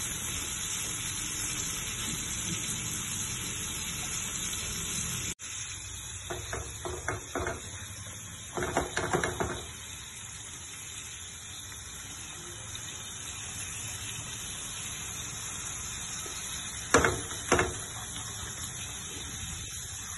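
Beef steak frying in butter in a pan: a steady sizzle, broken by a few short clicks and knocks about six and nine seconds in and twice near the end.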